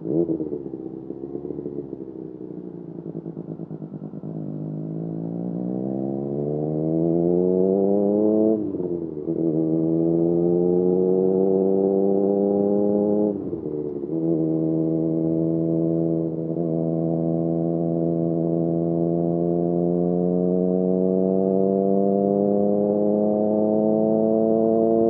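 Triumph Street Triple RS three-cylinder engine through an SC Project S1 slip-on exhaust, accelerating hard. The pitch climbs, drops at an upshift about eight and a half seconds in, climbs again, and drops at a second upshift about thirteen seconds in. It then pulls on at a nearly steady, slowly rising pitch.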